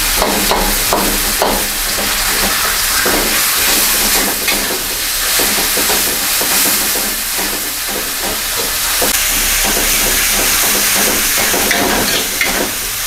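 Chicken wing and eggplant balado sizzling in hot oil in a pan, with a spatula stirring it and scraping and tapping against the pan about twice a second.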